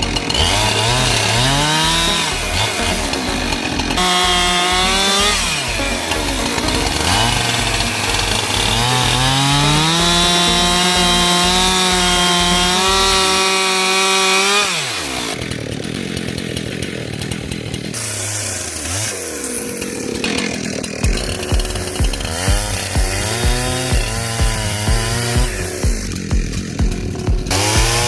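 Husqvarna 372XP two-stroke chainsaw with a 24-inch bar cutting logs into firewood. The engine revs up and holds at full throttle through a cut, drops off sharply about halfway through, then runs at lower, varying revs.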